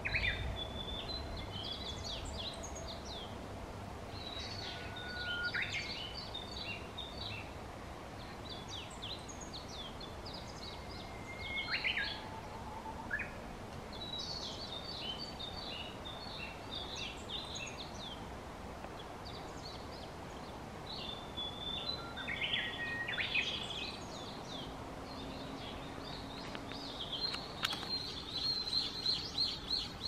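Several small songbirds singing at once in a chorus: overlapping high phrases of chirps, short whistles and quick up-and-down notes, coming one after another with short gaps, with a dense fast trill near the end over a low steady background hum.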